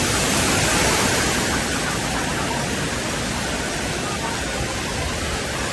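Heavy cascade of water from a water park play structure pouring down and splashing onto a flooded floor: a steady rushing hiss that eases slightly after the first second or two.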